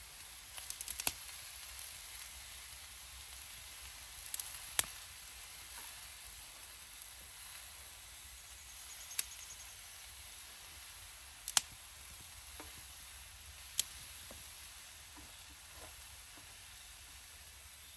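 Food frying in a pan: a steady sizzle with a sharp pop or click every few seconds.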